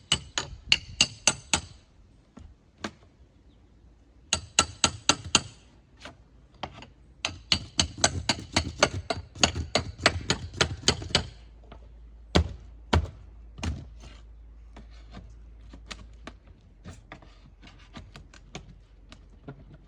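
Hammer tapping a metal pry bar in quick runs of about five strikes a second, each strike ringing, while working a nailed clapboard loose. Three slower, heavier knocks come about two thirds of the way through, then light ticking.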